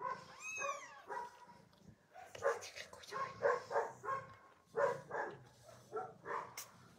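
Newborn kittens mewing: a run of short, high calls, several a second, starting about two seconds in.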